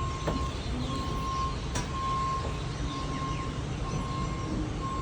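Vehicle reversing alarm beeping about once a second over a steady low engine rumble, with a few faint bird chirps.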